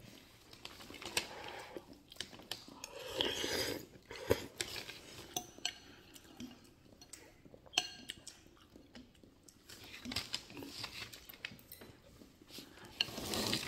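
A metal fork clinking and scraping against a bowl, with several sharp clinks, and close chewing in between.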